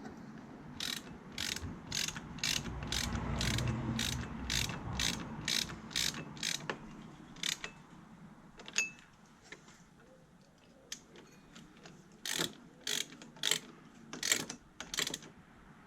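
Socket ratchet wrench clicking as a bolt is wound in, about two clicks a second. It stops for a few seconds partway and then starts again.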